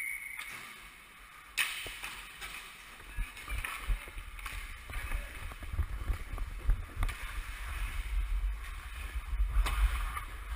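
Hockey skate blades scraping and carving on the ice, with sharp clicks of sticks and puck, the clearest about a second and a half in, and a low rumble on the microphone as the wearer of the camera skates.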